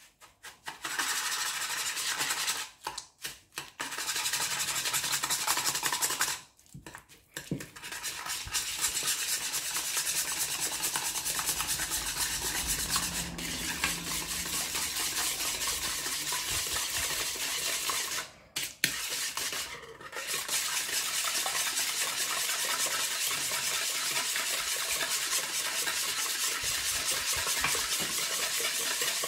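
Wire whisk beating egg yolks, sugar and cream cheese by hand in a mixing bowl: fast, steady strokes of the wires scraping and tapping against the bowl, with a few short pauses.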